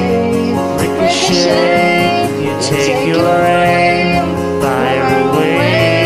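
Karaoke duet: a man and a woman singing along over a loud pop backing track, the voices wavering over steady chords.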